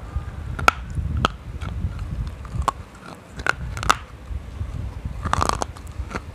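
Close-miked biting and crunching of a hard, brittle chunk: a series of sharp, crisp cracks a second or so apart, then a dense burst of crackling about five seconds in, with low chewing and grinding noise between the bites.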